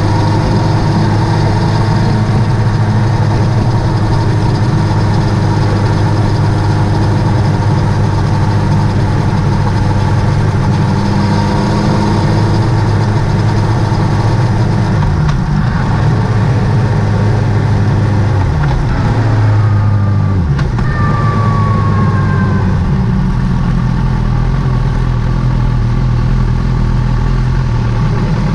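Motorcycle engine running at a steady pace, then dropping in pitch as the bike slows from about fifteen seconds in, settling to a low idle near the end.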